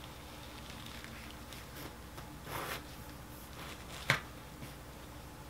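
Faint rustling of a potted hoya's vines and leaves being handled as thin skewers are set in for support, with one sharp click about four seconds in.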